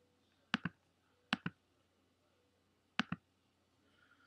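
Three computer mouse clicks, each a quick press-and-release pair, spread over a few seconds against a quiet room background.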